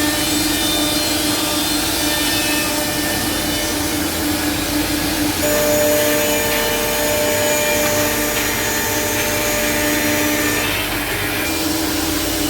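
Four-head CNC mortising machine running: a steady whine from its spindle motors over an even rushing noise of cutters working wood. About five and a half seconds in, further higher whining tones join in.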